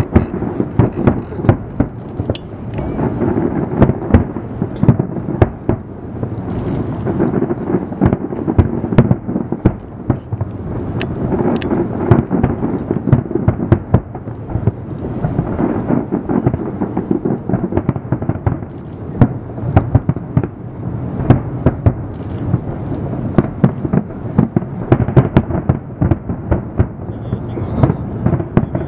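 Fireworks display: aerial shells bursting in a continuous barrage, many sharp bangs a second overlapping into a deep, rolling rumble.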